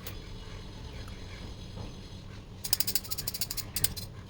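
Kitchen utensils rattling while spiced turmeric milk is strained: a fast run of clicks about two and a half seconds in, then a few more, over a low steady hum.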